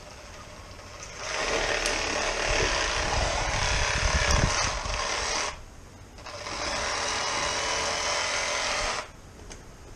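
Electric fillet knife fitted with a Filletzall blade, running in two long bursts as it cuts through a sheepshead. It starts about a second in, stops briefly a little past halfway, then runs again until near the end.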